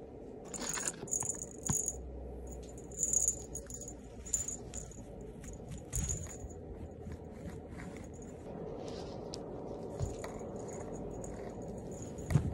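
A cat wand toy jingling and rattling in short bursts, with a small bell ringing high as the toy is shaken. A few dull thumps, the loudest near the end.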